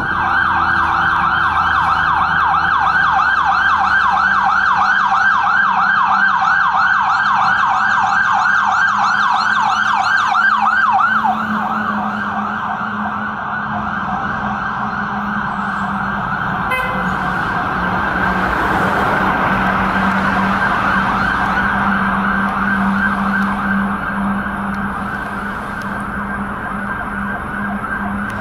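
Fire truck siren on a fast yelp, rapid rising-and-falling sweeps repeating several times a second. About eleven seconds in the sweeps blur together and a steady low hum joins under the siren.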